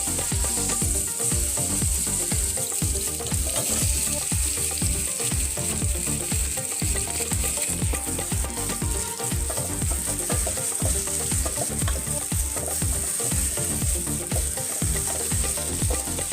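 Food frying and sizzling in a pan while being stirred, with a steady hiss and quick, continual scrapes and knocks of the stirring utensil.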